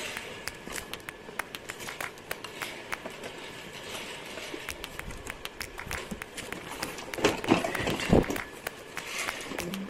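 Cardboard shipping carton being handled and pulled open, with rustling, scraping and scattered small clicks. A louder burst of scrapes and knocks comes about seven to eight seconds in.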